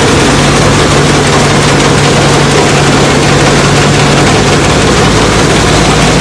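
Heavy machine engine running steadily with a low, even hum, driving a freshly repaired harvester header with a new cutter knife on its first test run.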